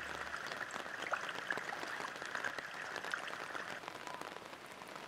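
Steady rain falling, an even hiss dotted with many small drop ticks, growing a little fainter near the end.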